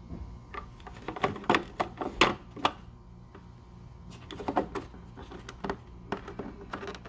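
Plastic clicks and rattles of a brake light bulb socket being pushed into a 2017 Nissan Rogue's tail light housing and twisted to lock. The clicks come in two bursts, one about a second in and another about four seconds in.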